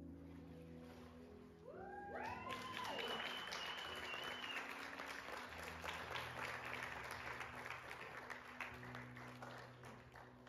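Small crowd cheering and clapping. Rising whoops come in about two seconds in, one held high for a couple of seconds, followed by steady applause over soft background music.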